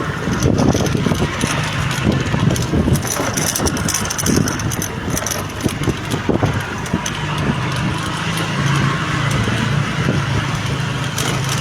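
A motor vehicle's engine running under a steady rushing noise, with scattered knocks; about seven seconds in, a steady low engine hum becomes clear.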